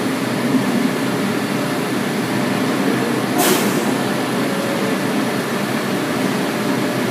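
R142 subway train standing at the platform with its doors open, its equipment and air-conditioning giving a steady hum and rumble. A brief hiss comes about three and a half seconds in.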